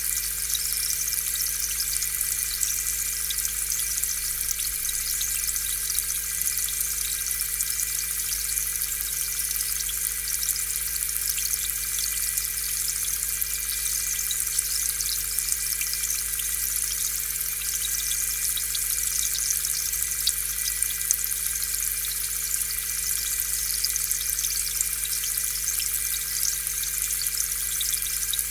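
Aquarium air pump humming steadily while its air stream bubbles up through the tank water in a constant high fizz of small pops.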